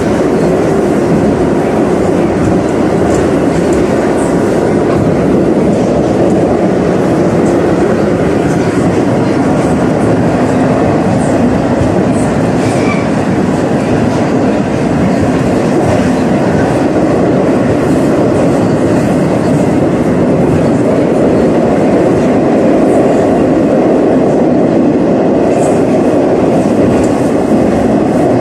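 Metro train running, heard from inside the carriage: a loud, steady noise of wheels on rails and running gear.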